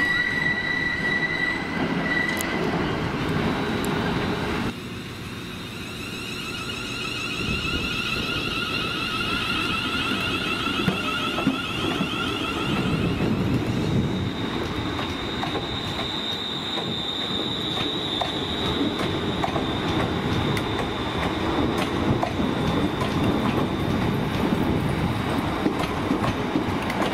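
ScotRail Class 380 electric multiple unit running slowly past, its wheels rumbling on the rails. High steady whining tones come in about six seconds in, and a single high wheel squeal holds from about halfway through.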